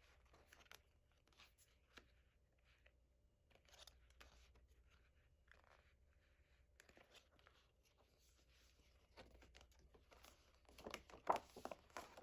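Paper and plastic album packaging being handled: faint rustling and small ticks, with a louder spell of tearing and crinkling near the end.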